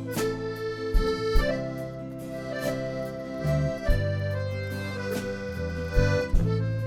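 Background music: a bouncy accordion-led tune over a steady bass and beat.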